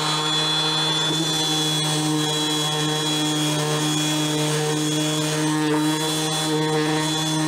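A Ryobi RROS18C 18 V brushless 125 mm random orbital sander runs at its third speed setting, sanding a wooden board with 80-grit paper. It gives a steady, even-pitched motor hum over the hiss of the paper on the wood.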